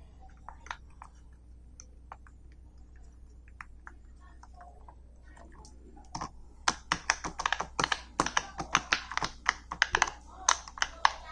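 Silicone pop-it fidget toy having its bubbles pressed by fingers, making sharp little pops. A few scattered pops come first, then a quick run of many pops from about six seconds in.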